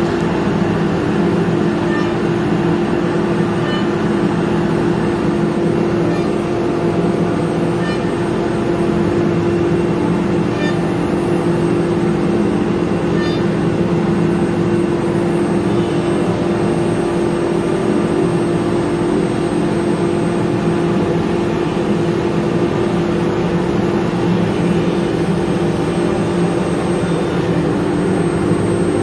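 Blue Elephant 2130 ATC CNC router's spindle running and its bit cutting grooves into an MDF sheet, a loud, steady machine hum with faint occasional ticks.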